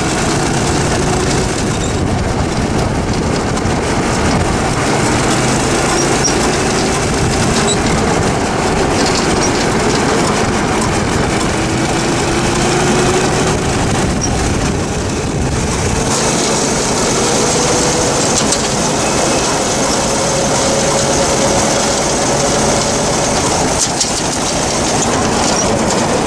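Go-kart's small gas engine driving through a belt torque converter while the kart is under way, its note climbing slowly as it gathers speed, then dropping back and climbing again partway through. A loud rush of wind and road noise runs over it.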